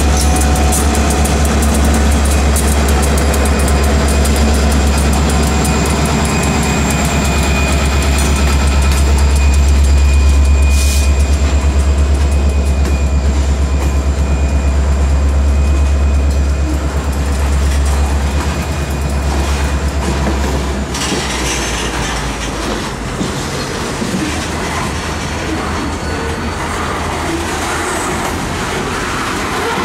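Diesel freight train passing close by. The locomotives' engines make a steady low drone that fades about two-thirds of the way through, and then the freight cars roll past with wheel noise on the rails and a faint high squeal.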